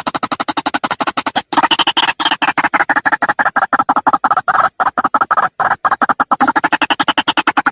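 Recorded white-breasted waterhen (ruak-ruak) calls played back as a trapping lure: a fast, steady run of short repeated notes, about eight a second, with a brief break about a second and a half in.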